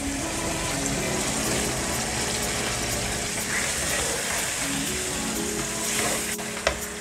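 Mutton and freshly added onions sizzling steadily in hot oil, under soft background music with long held notes.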